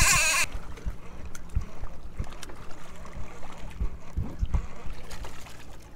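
A conventional fishing reel being cranked to bring in a hooked fish, with water lapping against the boat's hull and scattered light clicks.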